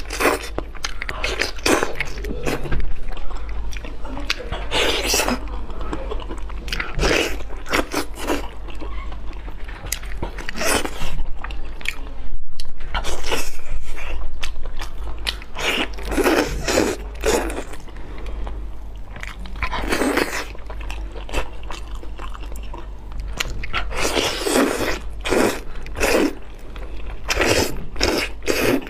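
Close-miked eating sounds: a person biting into and chewing a large chili-dressed lamb rack, in irregular bursts of bites and wet chewing. A steady low hum runs underneath.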